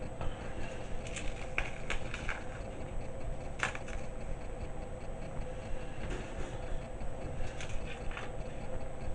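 Crisp meringue being crumbled by hand, giving a few short, irregular crackles over a steady low background noise.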